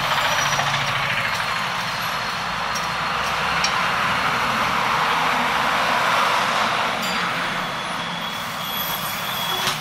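Busy road traffic, with a diesel bus's engine running as it drives through the roundabout, plus auto-rickshaw engines and tyre noise.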